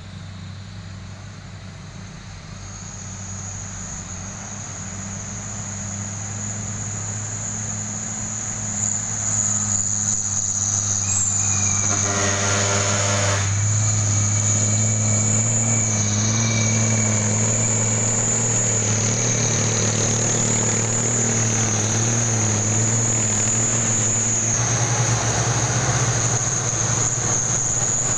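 Diesel engines of old Nissan cargo trucks pulling uphill, a steady low hum that grows louder as the trucks approach and pass close by. A steady high insect drone runs over it.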